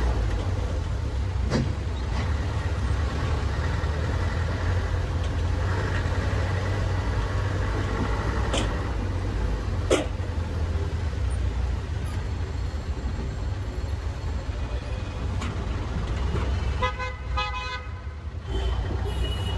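Road traffic with a steady low rumble and vehicle horns sounding. Near the end a horn gives a quick series of short toots.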